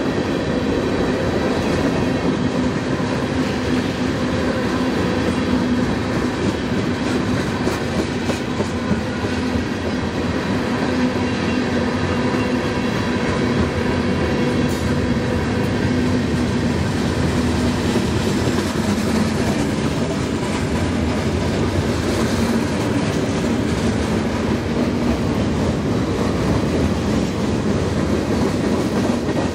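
Freight cars of a mixed freight train rolling past close by: a steady rumble and clatter of steel wheels on the rails.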